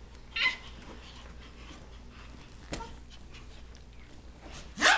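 A dog making two short, sharp vocal sounds, one about half a second in and one at the end, with a single click near the middle.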